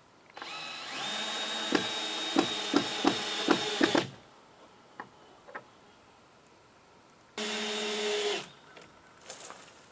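Power drill driving screws into a wooden rafter board: the motor spins up and holds a steady whine for about three and a half seconds, with several sharp clicks in its second half, then runs again for about a second near the end.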